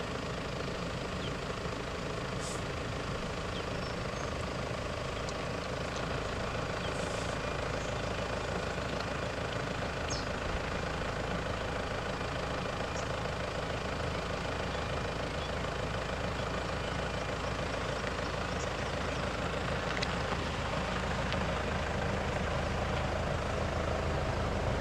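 Vehicle engine idling steadily, with a few faint short clicks over it.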